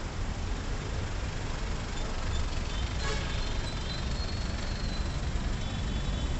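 Street traffic on a busy city road: a steady low rumble from the engines and tyres of passing buses, vans, jeepneys and motorcycles. A brief sharp sound comes about halfway through, followed by faint high, thin tones lasting a couple of seconds.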